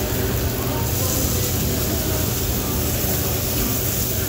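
Steady drone of a teppanyaki griddle's exhaust ventilation, with an even hiss of food sizzling on the hot flat-top.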